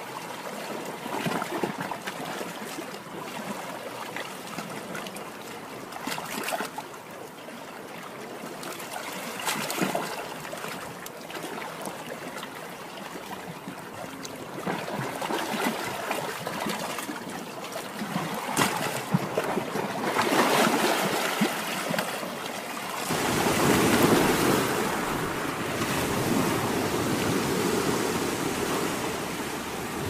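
Small sea waves breaking and washing onto the shore: a steady surf hiss that swells and eases. About three-quarters of the way through, a deeper, louder wash comes in and carries on.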